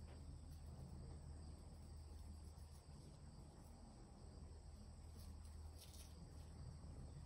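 Near silence with faint, steady high-pitched insect chirring, crickets by the sound of it, over a low hum.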